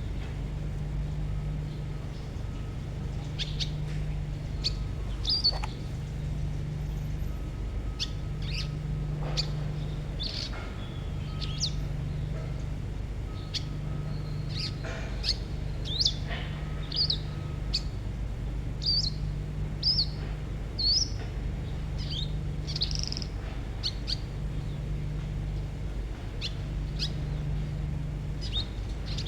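A songbird giving short, sharp, harsh chirps in quick bursts, the rough 'tembakan' call that kicau-bird keepers play as tutor song. A steady low hum runs underneath, swelling and fading about every two seconds.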